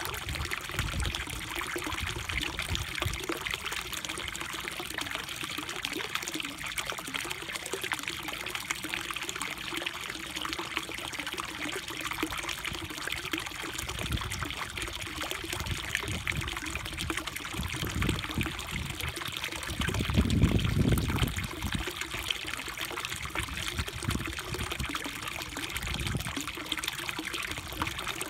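Steady trickle of water pouring into a koi pond, with a brief low rumble about two-thirds of the way through.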